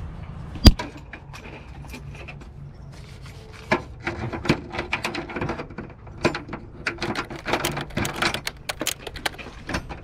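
A sharp loud knock under a second in. Then, from about four seconds on, a run of irregular clicks and knocks as the plastic plunge latch on an RV underside compartment door is worked and the door is handled.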